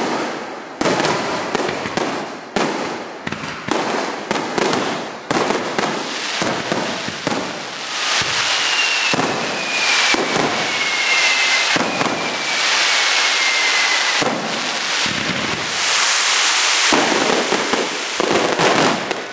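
Aerial fireworks shells bursting in rapid succession, sharp bangs a fraction of a second apart, merging after several seconds into a dense continuous barrage that peaks near the end. Two long falling whistle tones run through the middle.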